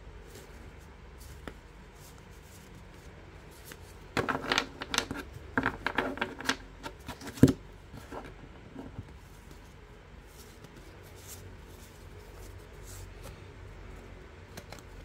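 UNO Platinum Edition playing cards being handled: a flurry of flicking, sliding card sounds starting about four seconds in, ending in one sharp tap as cards are put down on the table, then only faint card rustles.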